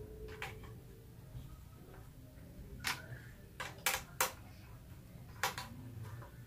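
Sharp plastic clicks and knocks from ring light parts being handled and fitted together, about six in all, three in quick succession between three and four seconds in.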